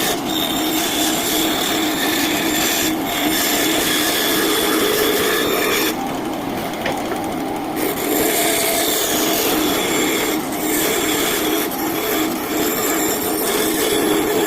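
Scheppach Basa 1 bandsaw running and cutting a curve in mahogany: a steady motor hum with the rasp of the blade through the wood. The cutting noise eases for a couple of seconds about six seconds in, then picks up again.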